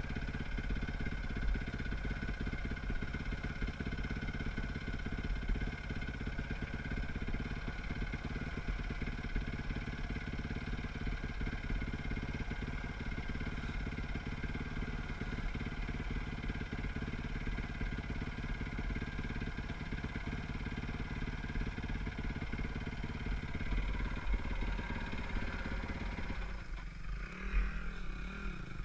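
Dirt bike engine idling steadily, then near the end the pitch shifts and wavers as the engine is revved.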